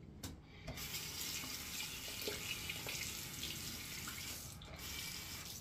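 Bathroom tap running water into the sink, a steady rush that starts about a second in and stops near the end.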